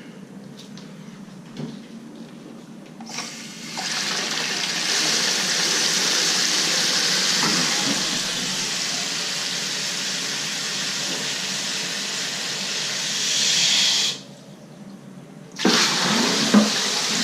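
Toilet running after its Fluidmaster valve is replaced: water rushes and hisses into the tank starting about three seconds in. It cuts off abruptly near the end and starts again a second and a half later.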